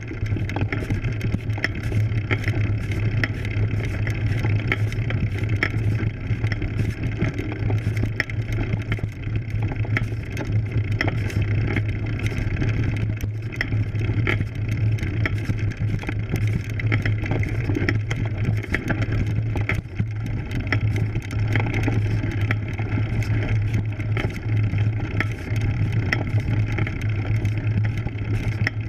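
Road bike ridden up a steep dirt climb, heard from a camera mounted on the bike: a steady rumble of tyres on dirt and loose gravel under a constant low hum, with many small rattling clicks from the bike and its mount.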